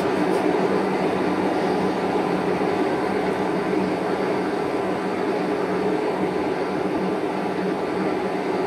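Metal lathe running steadily with its four-jaw chuck spinning and no cutting under way, giving an even machine hum.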